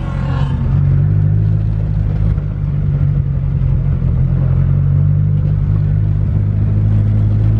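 Car engine running steadily at low speed, a low even drone that swells for about the first second and then holds.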